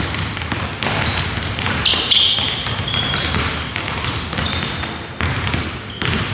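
Basketballs bouncing and sneakers squeaking on a gym floor as several players run a layup drill; the squeaks are short and high-pitched, some sliding in pitch.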